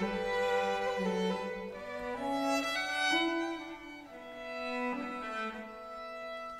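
Violin playing a slow traditional Scandinavian fiddle tune, a melody of bowed notes each held about half a second to a second.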